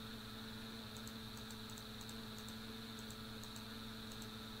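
A run of faint, irregular computer mouse clicks as number buttons are clicked on an on-screen calculator, over a steady electrical hum.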